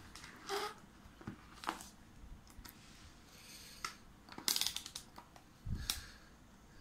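Scattered clicks and knocks of a digital multimeter being handled and set down on a workbench, with a denser clatter about four and a half seconds in and the click of its rotary selector being turned near the end.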